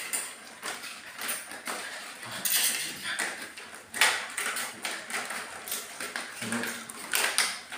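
Puppies scrambling over a round metal wire stand, making the metal frame and bowl clink and knock in irregular taps, several louder than the rest. A short low puppy grunt comes near the end.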